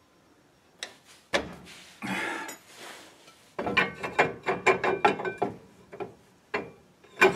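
Drum brake adjuster on a classic Ford Mustang's rear brake backed off a couple of clicks, then the brake drum is slid over the shoes and worked by hand, with a run of metallic clicks, rattles and scrapes and a knock near the end.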